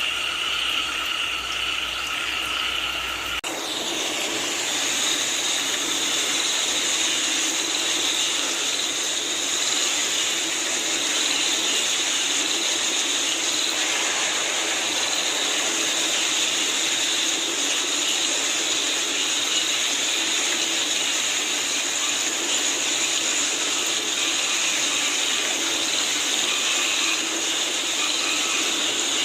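A chorus of frogs calling, cut off abruptly about three seconds in, then a steady hiss of falling rain.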